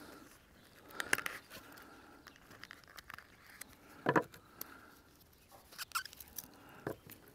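Hands taking a wristwatch out of its presentation box and handling its steel link bracelet: scattered light clicks and taps, with a louder knock about four seconds in.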